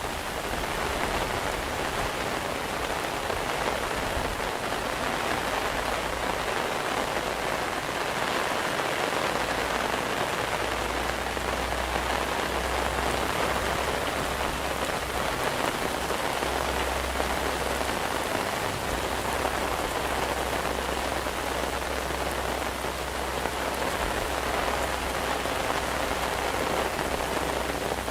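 Steady rain falling on hard surfaces: an even hiss of many drops with no let-up. A low rumble underneath swells and fades at times.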